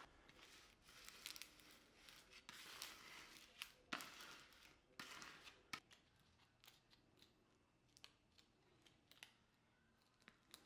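Faint hand work on vinyl decal sheet and transfer tape: a run of short snips, scrapes and peeling sounds with sharp clicks, busiest in the first half and thinning to scattered ticks later.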